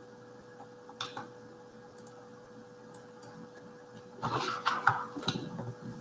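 Computer desk clicks: a single mouse click about a second in, then a quick run of keyboard and mouse clatter near the end, over a steady faint electrical hum.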